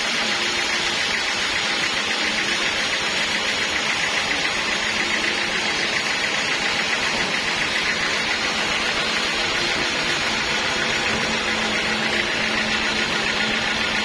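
Band sawmill running steadily without cutting: a constant mechanical hiss and hum from the spinning saw and its drive.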